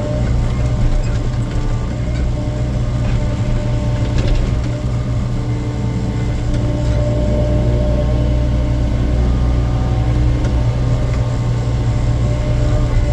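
Hydraulic excavator's diesel engine running steadily under working load, with a thin hydraulic whine over it and a brief knock about four seconds in.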